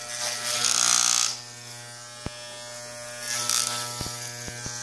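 Corded electric pet clippers buzzing steadily as they trim a goldendoodle's curly coat. The buzz grows louder twice, about a second in and again past three seconds, with a few light clicks between.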